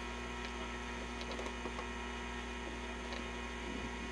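Steady electrical mains hum with a few faint light clicks.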